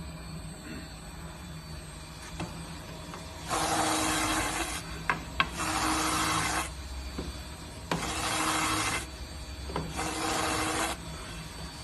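Oscillating vertical spindle sander running with a steady hum, and a workpiece pressed against the sanding drum four times, each press giving about a second of loud rasping sanding. Two sharp clicks come between the first and second passes.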